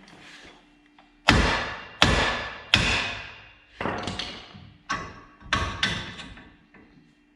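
About seven hard hammer blows on the truck's steering knuckle to shock a tie rod end's tapered stud loose, each metal strike ringing briefly. The first three come quickly, then a short pause and four more, the last two close together.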